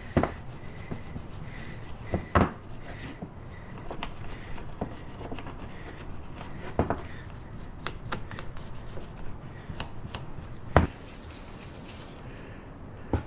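Irregular clicks, knocks and scraping of hands and tools working on the engine around the EGR valve. The louder knocks come about two and a half seconds in and again near eleven seconds.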